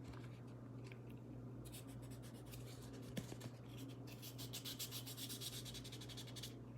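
Wet 1000-grit sandpaper rubbed in quick back-and-forth strokes on a stainless steel watch bracelet link: a faint, fast rhythmic scratching in two runs, the longer one from about four seconds in to near the end.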